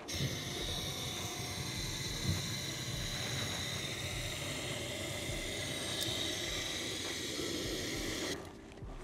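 Aerosol can of car air-conditioning cleaning foam spraying through its extension hose, a steady hiss that cuts off suddenly a little over eight seconds in.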